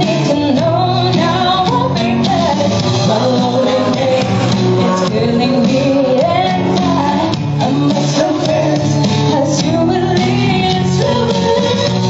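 Song performed with guitar accompaniment and a singing voice carrying a wavering melody.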